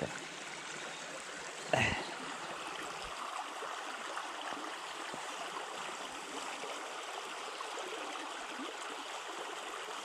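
Small shallow forest stream running steadily over snags and shallows, with one brief louder sound about two seconds in.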